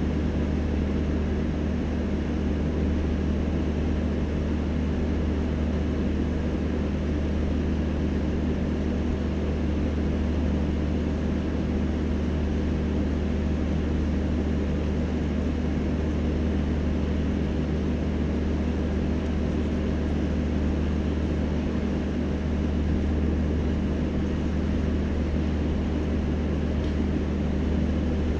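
Steady drone of the diesel generator sets in an end-on-generation power car, which supply the train's power for air conditioning, lights and fans. It is a deep, even hum with no change in pitch or level.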